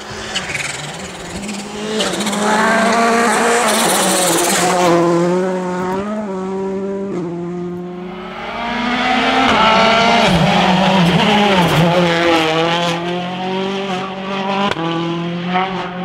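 Rally cars' engines revving hard at full throttle, the pitch climbing and stepping down through quick gear changes, in two loud passes with a few sharp cracks from the exhaust.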